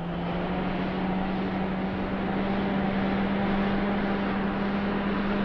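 Heavy semi-truck diesel engine running steadily, a constant low hum with a wide even rumble over it.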